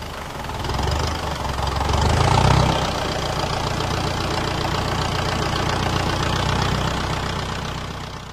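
Ferguson T20 tractor engine running steadily. It swells about two seconds in and fades away near the end.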